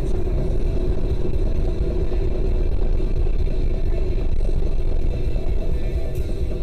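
Steady rumble of a car driving at road speed, engine and tyre noise as picked up by a dashboard camera inside the car.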